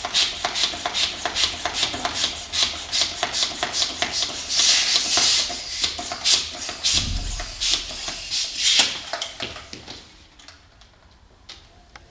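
Hand balloon pump being worked in quick strokes, several a second, with a rasping, rubbing sound as it inflates a long latex modelling balloon. The pumping stops about ten seconds in.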